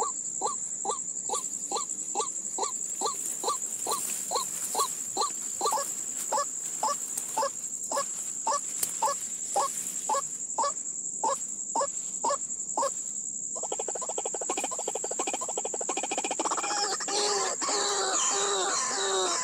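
White-breasted waterhen (ruak-ruak) calling: a long series of evenly repeated calls, a little over two a second, that turns about two-thirds of the way through into a fast continuous rattle and then quicker, wavering notes. A steady high whine runs underneath.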